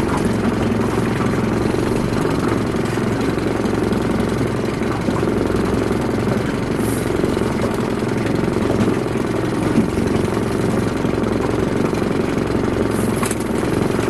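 A small fishing boat's motor running steadily, a constant low hum that does not change in pitch or level.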